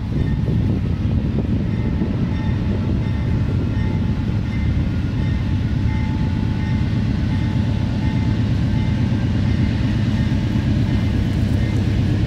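Diesel locomotives of a four-unit BNSF freight train working under power as the train starts to accelerate: a steady low engine rumble with a thin whine above it, growing slightly louder near the end.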